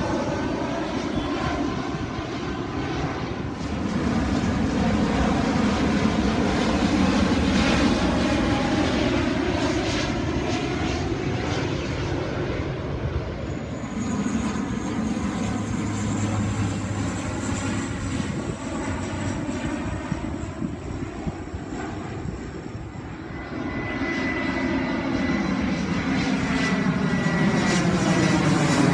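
Airliner engines passing overhead in a continuous rushing noise whose tone sweeps as the plane goes by. The sound dips late on and then builds again as another aircraft approaches.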